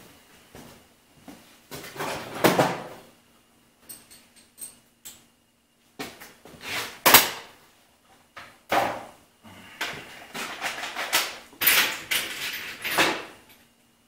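Metal tools clattering and a drawer sliding in a tool chest as tools are rummaged for, in several separate bursts about two, seven, nine and eleven to thirteen seconds in.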